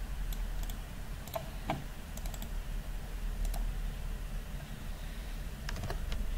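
Computer keyboard keys clicking in short, irregular keystrokes as a command is typed, over a steady low hum.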